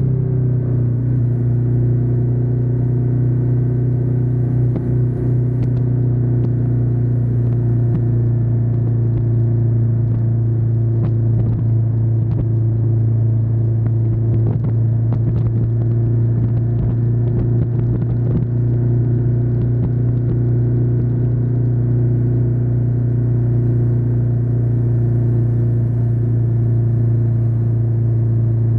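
Ducati Diavel 1260S's 1262 cc V-twin running at a steady, even engine speed while being ridden, a loud, constant rumbling exhaust note that settles slightly lower in pitch just after the start.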